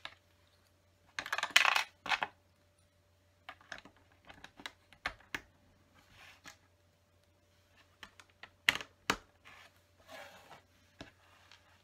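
Plastic LEGO bricks clicking and clattering as loose pieces are picked up from the table and pressed onto a build, in scattered sharp clicks with louder clattering bursts about a second and a half in and again near nine seconds.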